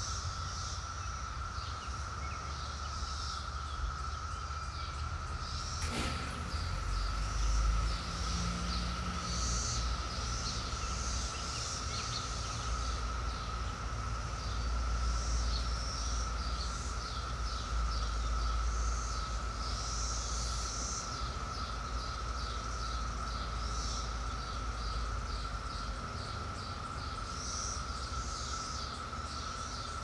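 Chorus of Brood X periodical cicadas, a steady unbroken drone, with birds chirping over it and a low rumble underneath. A single sharp click about six seconds in.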